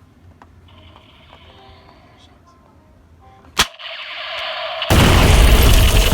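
Sharp click about three and a half seconds in, then the MONTOY Combat Mission Ball Gun's electronic machine-gun sound effect starts up, a steady tone with a rattle, and becomes very loud about five seconds in.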